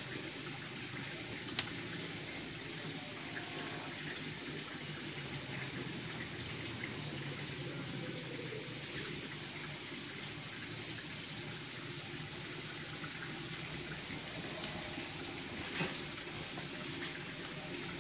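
Steady rush of circulating water in a saltwater reef aquarium, with a faint steady high whine over it.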